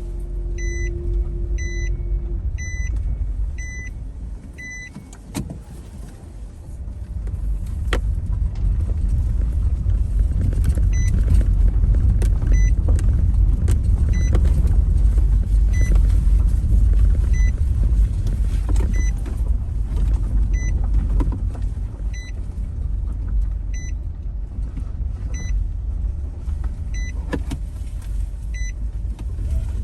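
Car on the move: a steady low road-and-engine rumble, with a short electronic beep repeating about every two-thirds of a second for the first few seconds, then about once a second.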